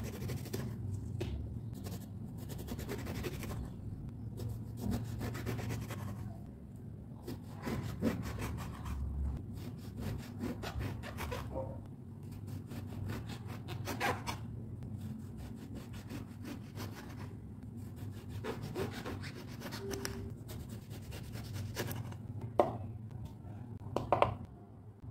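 A large kitchen knife slicing through a brinjal onto a wooden cutting board: repeated sawing strokes through the flesh, each ending in a light knock on the board. Near the end come two sharper, louder knocks.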